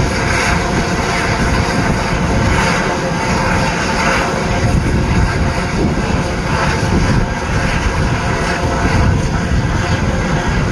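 Coal-fired cog railway steam locomotive Ammonoosuc working hard up a steep trestle: a loud, steady rumble and rush of exhaust without clearly separate chuffs.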